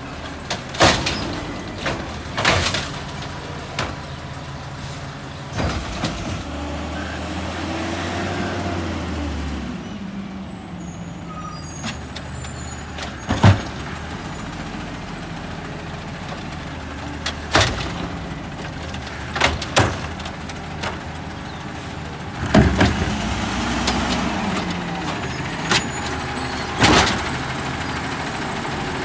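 Automated side-loader garbage truck working curbside carts: the engine runs steadily and revs up and back down twice as the hydraulic arm works, with sharp clanks and bangs as carts are gripped, shaken empty into the hopper and set back down.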